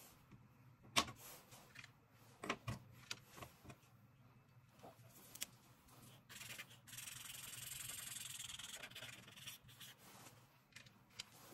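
Felt-tip marker rubbing back and forth on paper, a steady scratchy hiss for about two seconds past the middle as an area is coloured in. Earlier, a few sharp clicks and taps from the markers being swapped and handled.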